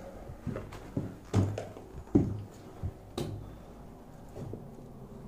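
Footsteps climbing a debris-strewn carpeted staircase: a run of irregular dull thumps, ending with a sharper knock a little after three seconds in.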